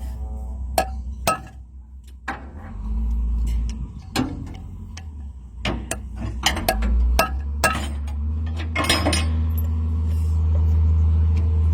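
Metal parts and tools clinking and knocking a dozen or so times, over a low steady engine-like rumble that grows louder and steadier in the last few seconds.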